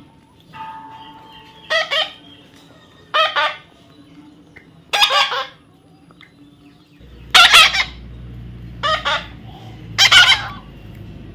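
A bird squawks loudly six times, in short calls about a second and a half apart. A low steady hum comes in about halfway through.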